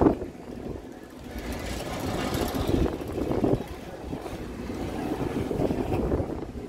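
Rushing wind and ride noise from a spinning Tornado fairground ride car, swelling and fading as the car whirls around.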